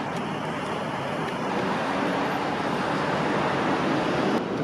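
Steady road-traffic noise, an even hiss of passing cars, with a faint click near the end.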